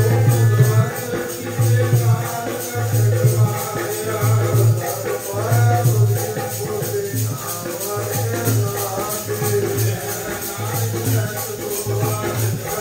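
Sikh devotional kirtan music: a melody with wavering pitched lines over a steady beat, with low beats about once a second and a continuous jingling rattle.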